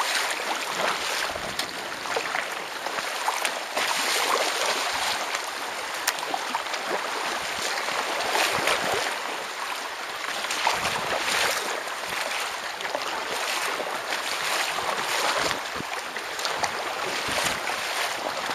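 Water splashing and rushing at the bow of a kayak moving through choppy lake water, surging every couple of seconds.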